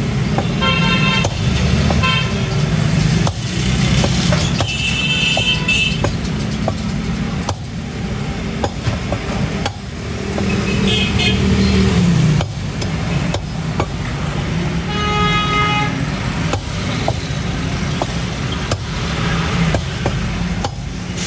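Heavy meat cleaver chopping through rabbit meat and bone on a wooden chopping block, sharp chops at irregular intervals. Behind it runs steady traffic noise, and car horns honk several times.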